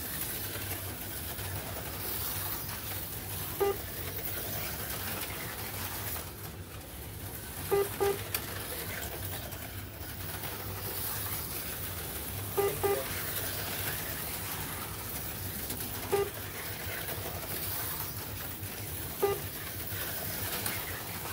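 HO-scale slot cars running on a multi-lane track, a steady whir of their small motors. Short low hoot-like tones sound every three to five seconds, some single and some in close pairs.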